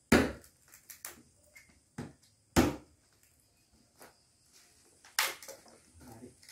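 Claw hammer knocking a flat metal bar under the nailed wooden lid of a crate to pry it open: a run of sharp knocks, the hardest at the start, about two and a half seconds in and about five seconds in, with lighter taps between.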